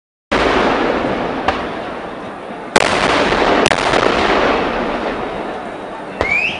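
Huge temple fireworks crackers bursting in the air, their bangs merging into a loud, continuous rolling rumble. Sharp louder bangs stand out about three and almost four seconds in, and a short rising whistle follows a last bang near the end.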